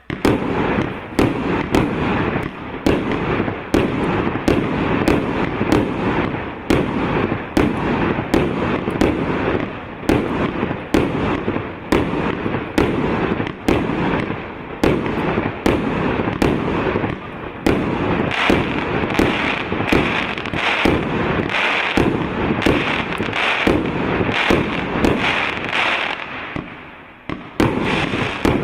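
A 100-shot, 1.25-inch firework cake (EC770 'All Inclusive') firing in rapid succession, with a sharp bang about every half second and continuous crackling between them. The firing falters briefly near the end, then picks up again.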